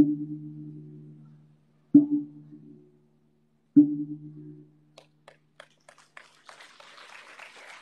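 A gong on a wooden stand struck three times with a mallet, about two seconds apart, each stroke ringing and dying away, to mark the official launch. Scattered clapping begins about five seconds in and builds into applause.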